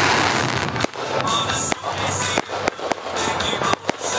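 Aerial fireworks bursting, with a dense crackle at first and then a string of sharp, irregular bangs and pops, mixed with background music.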